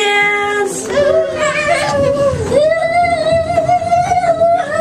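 A high voice singing unaccompanied: a few long, drawn-out notes, the last held for about two seconds with a wavering pitch.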